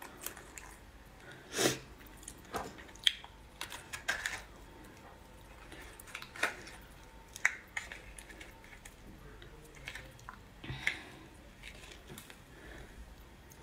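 A raw crab's shell being pried and picked apart by hand: short sharp cracks and clicks of shell at irregular intervals, with soft wet handling of the meat and roe.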